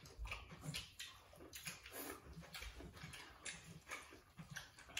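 People eating rice noodles with their hands from metal bowls: soft chewing, slurping and lip-smacking with small irregular clicks.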